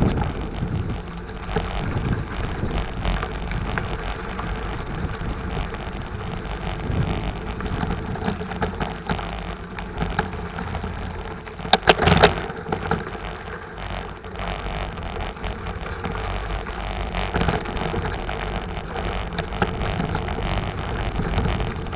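Bicycle riding over rough dirt and construction debris: tyres crackling over the ground and the bike rattling, with a loud sharp knock about halfway through.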